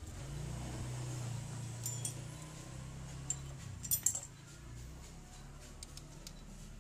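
Metal hand tools clinking against a motorcycle engine's valve rocker gear while the valve clearance is set with a feeler gauge: a couple of light clinks about two seconds in and a quick cluster about four seconds in, over a low steady hum.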